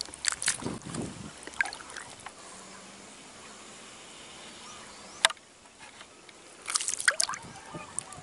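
Water sloshing and trickling around a person wading chest-deep, with scattered small splashes and drips in the first two seconds and again about seven seconds in, and one sharp click a little after five seconds.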